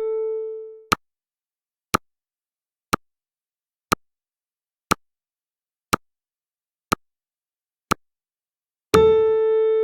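Countdown-timer sound effect: short sharp ticks about once a second. A pitched beep with overtones fades out in the first second, and another sounds about nine seconds in, marking off each ten-second block.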